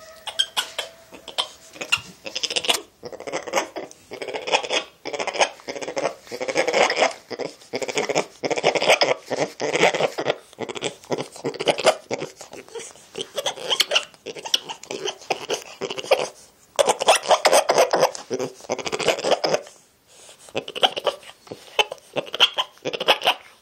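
Spider monkey vocalizing close to the microphone in repeated bursts of rapid pulsed sounds, each burst lasting a second or two.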